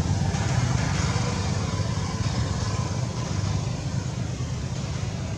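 Low, steady rumble of a motor vehicle engine that slowly fades away.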